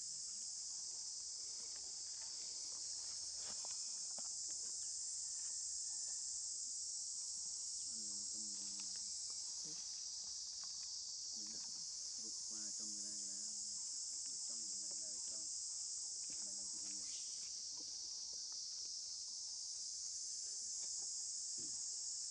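A steady, high-pitched chorus of insects, a continuous shrill trilling that holds throughout. Faint distant voices come and go in the middle.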